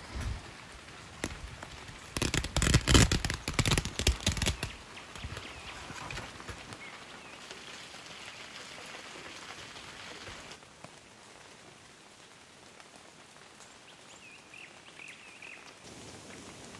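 Rain pattering, broken by a loud burst of crackling knocks from about two to nearly five seconds in. A few short bird chirps come near the end.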